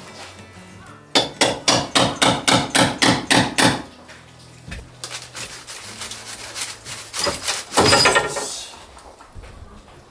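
A hammer striking a wooden support bar in a quick run of about a dozen blows, roughly four a second, to knock it loose. A louder scrape of wood comes about eight seconds in.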